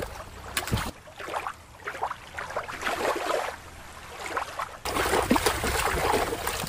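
Shallow water sloshing and splashing as a plastic toy shark is swished through it by hand, with a quieter watery stretch in the middle and the hardest, loudest splashing near the end.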